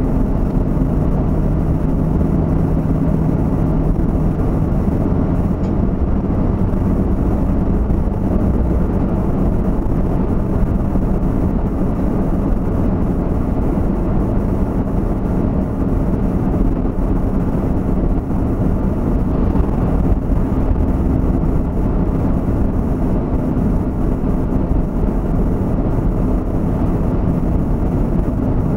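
Steady road and engine noise of a moving vehicle heard from inside the cabin, an even low rumble with no sudden events.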